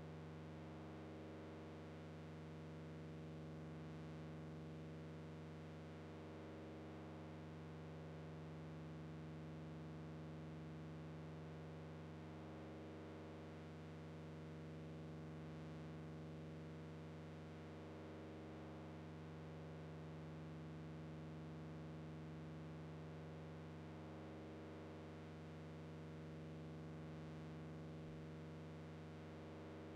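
Eurorack modular synthesizer patch, fed by a Befaco Rampage and processed through delay and distortion modules, holding a low, steady electronic drone of several stacked tones that swells and ebbs slowly, about every six seconds.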